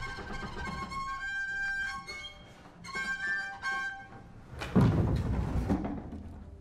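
Double bass giving high, sustained ringing tones that shift pitch every half second or so. Just before five seconds in comes a loud thump with a boomy rumble from the instrument's body as the bass is lifted and handled, then it dies away.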